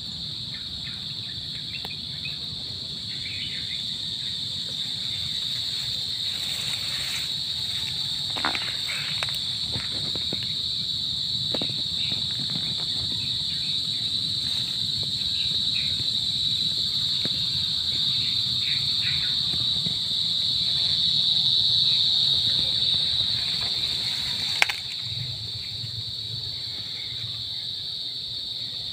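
Steady high-pitched drone of an insect chorus, crickets or cicadas, holding one pitch and swelling a little past the middle. A few light clicks sound, with one sharp click near the end.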